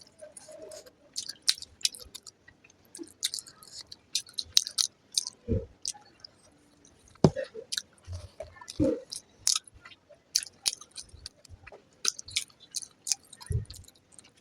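Close-miked chewing of a mouthful of fried rice and egg curry, with many short wet mouth clicks and smacks and a few deeper thuds.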